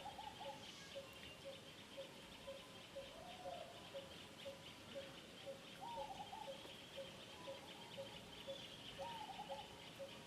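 Faint bird calls: a short note repeating evenly about three times a second over dense high chirping, with a rising-and-falling call every three seconds or so.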